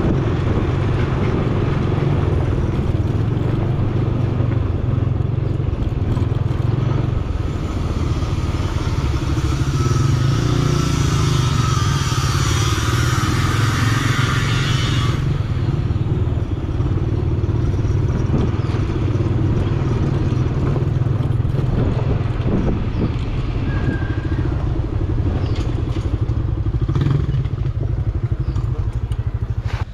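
Yamaha scooter's engine running steadily at low speed, heard from the rider's seat, with road noise from the dirt lane. A hissier stretch comes for several seconds midway.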